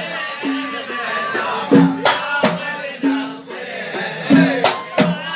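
Live Arabic wedding music: singing over a band, with irregular, resonant hand-drum strokes and sharp knocks.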